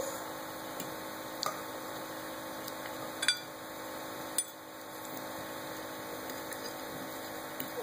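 Three light, scattered clinks of a fork against a bowl as a child scoops spaghetti, over a steady low room hum.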